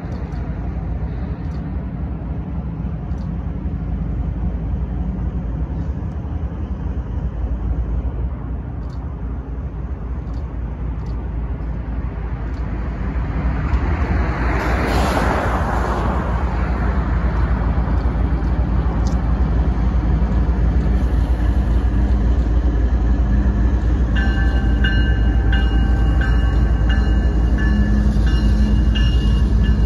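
BNSF diesel locomotive hauling a train of passenger cars, its steady low engine rumble growing louder as it comes up and passes close by. A car drives past on the road about fourteen seconds in, and a few high thin tones come in near the end as the train passes.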